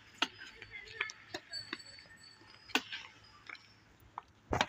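Badminton rally on a concrete court: scattered sharp clicks of rackets striking the shuttlecock, with the loudest hit shortly before the end.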